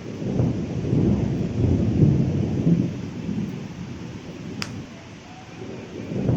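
Thunder rumbling over steady heavy rain. The rumble swells about half a second in and eases off past the middle, with one sharp tick partway through.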